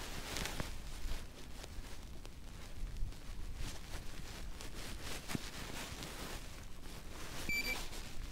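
Faint scuffs, clicks and rustling from digging through wet, muddy soil to recover a small target, with one short high electronic beep from the metal detecting gear near the end.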